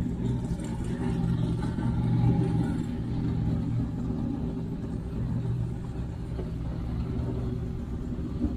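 Low, steady engine rumble of the vehicle towing a race boat on its trailer, moving slowly, with road noise from the tyres.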